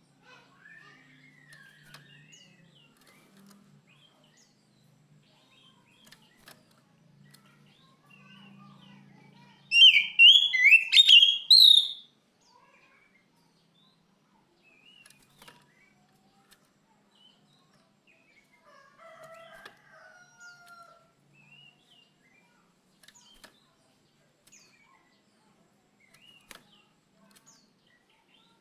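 Oriental magpie-robin (kacer) singing: one loud burst of quick, high, rising notes lasting about two seconds, with faint scattered chirps before and after.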